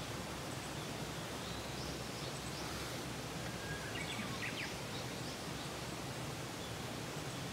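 Steady outdoor background noise with faint, scattered bird chirps, a small cluster of them about four seconds in.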